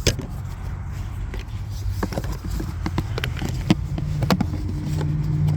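Scattered light clicks and knocks of plastic parts being handled while a cabin air filter is seated in its housing behind a car's glove box, over a steady low hum.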